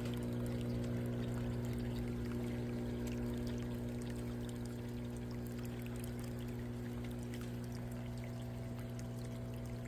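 Water pouring and splashing into an aquaponics tank over the steady low hum of the pump that circulates it.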